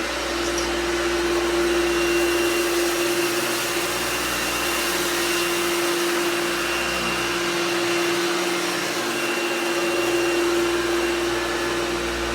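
Vintage Hoover vacuum cleaner running steadily with a constant hum as it sucks up rice scattered on carpet. The motor has just come up to speed at the start and begins to wind down right at the end.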